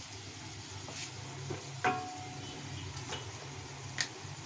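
Cumin and grated ginger frying in oil in a steel kadhai, a faint sizzle, while a wooden spatula stirs and knocks against the pan a few times, the loudest knock about two seconds in. A low steady hum runs underneath.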